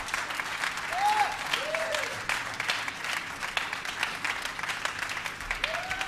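Live concert audience applauding and whistling after a song ends, with a few rising-and-falling whistles over the clapping.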